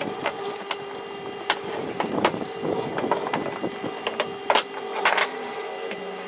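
Wood being handled in a workshop: scattered sharp knocks and clatters of wooden pieces, the loudest two near the end, over a faint steady hum.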